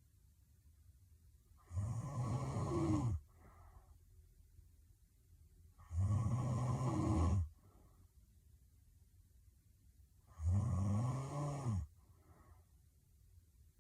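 A sleeping woman snoring heavily: three loud, rattling snores about four seconds apart, each followed by a short, softer breath.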